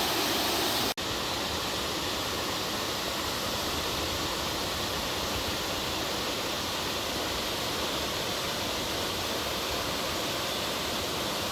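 Waterfall pouring, a steady, even rush of falling water. About a second in, the sound drops out for an instant and resumes with a slightly different balance, as at an edit between two shots.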